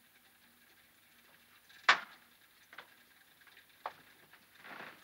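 Slow footsteps on a floor: one sharp, loud step about two seconds in, then two quieter steps about a second apart, and a short rustle near the end.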